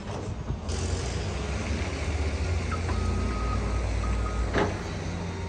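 Heavy diesel excavator engines running with a steady low rumble. A back-up alarm beeps, one longer beep and one short one, around the middle. One sharp knock comes near the end.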